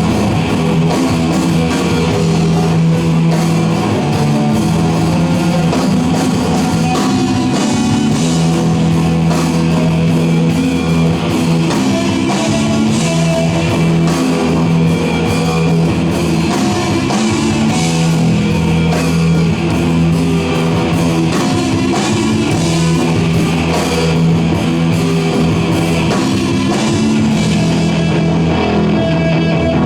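Rock band playing loudly and continuously: electric guitars over a drum kit, with long sustained low notes repeating in a riff.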